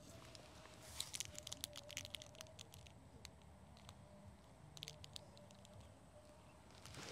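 Near silence broken by faint crackling of dry leaves and debris underfoot, in two short clusters.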